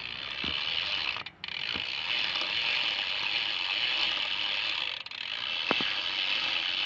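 A BMX rear cassette hub, a Demolition Rolls, buzzing as the back wheel freewheels: a fast steady ratchet clicking too quick to count. It breaks briefly about a second in and again near five seconds. A few separate louder clicks sound over it, and the bike has a weird clicking noise whose cause has not been found.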